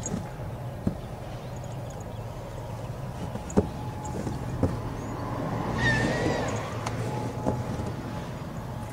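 Steady low rumble of distant road traffic, swelling as a vehicle passes about six seconds in, with a few faint clicks.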